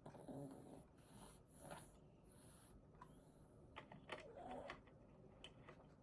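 Faint computer keyboard typing: a few scattered soft key clicks with light rustling between them.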